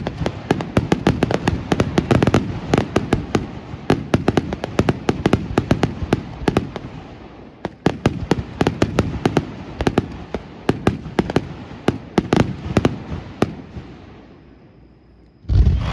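Aerial fireworks display: a dense volley of rapid cracking and popping reports, many a second, thinning out and dying away about fourteen seconds in, then a heavy low boom just before the end.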